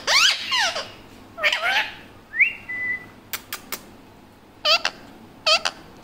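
Indian ringneck parakeet chattering in short bursts of quick rising and falling notes, with a single whistle that rises and then holds steady about halfway through. Three sharp clicks follow the whistle, and there are two short calls near the end.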